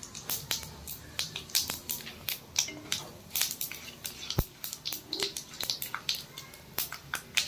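Whole cumin seeds crackling in hot ghee in a kadai, irregular sharp pops as the tempering fries, with a wooden spatula stirring through them and one sharper knock about four seconds in.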